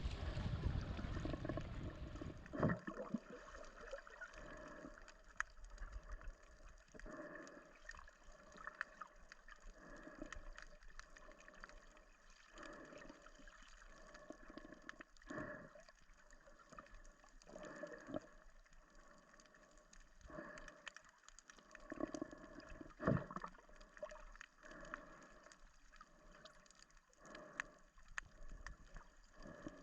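Seawater lapping and gurgling in faint, irregular small splashes, about one every second or so.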